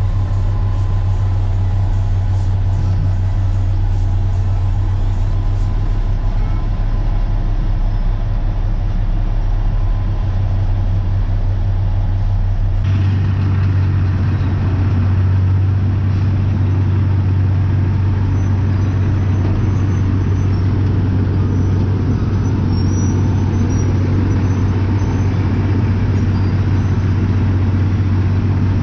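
Heavy diesel engines running with a steady, deep drone: first the dump truck's engine heard from inside its cab, then, after a sudden change about 13 s in, a road milling machine working, its conveyor loading milled asphalt into the dump truck, with a rougher, noisier rumble.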